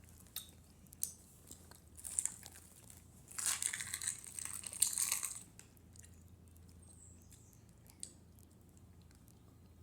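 Plastic candy wrapper of gummy candies rustling and crinkling in short bursts, the longest from about three and a half to five and a half seconds in, among scattered small clicks.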